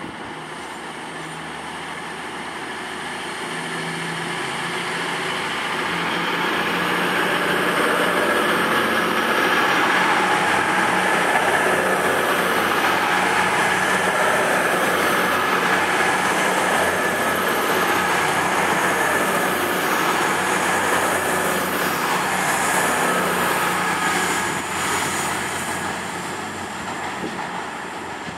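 Class 222 Meridian diesel-electric train departing, its underfloor Cummins diesel engines running under power with a steady whine. It grows louder over the first several seconds as the cars pass, then fades near the end as the train moves away.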